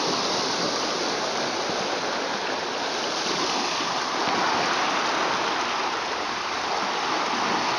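Water rushing and churning below a canal lock's gates as the lock is let out: a steady rush of white water.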